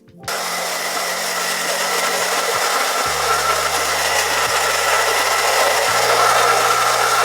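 Handheld blow dryer switched on about a quarter second in and running steadily on high, with a faint steady whine over the rush of air, drying the lace glue on the hairline.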